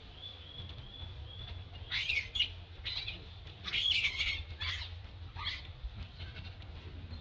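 A series of short, high-pitched chirping calls, about six over four seconds, the loudest around the middle, after a faint thin steady whistle in the first second and a half.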